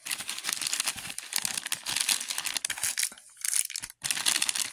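Crinkling and rustling of shiny plastic candy wrappers as fun-size candy packets are handled and pulled out of a large plastic candy bag, dipping briefly a little after three seconds.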